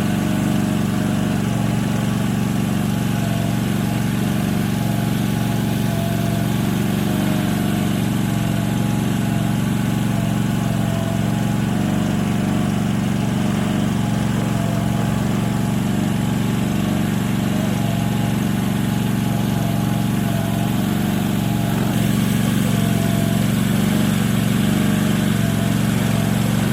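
Gasoline pressure washer's small engine running steadily under load, with the hiss of high-pressure water spray on the driveway; slightly louder near the end.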